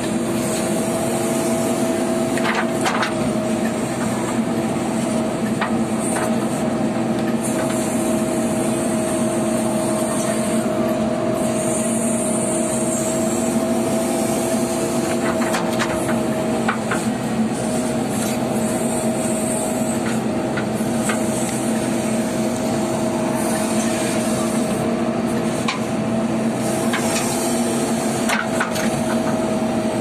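JCB backhoe loader's diesel engine running steadily from inside the cab, with occasional knocks and clatter as the backhoe digs into stony soil.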